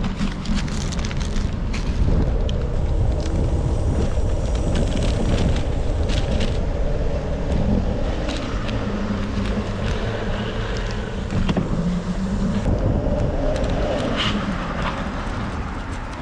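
Steady road and wind noise from riding a bicycle through city streets, with scattered clicks and rattles.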